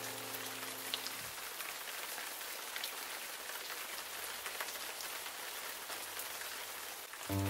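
Steady rain ambience, an even hiss dotted with small drop ticks. A held chord fades out about a second in, and music comes back in just before the end.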